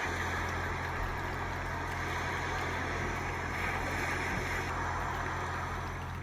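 A steady low mechanical hum under an even rushing noise, like a motor running, with no change throughout.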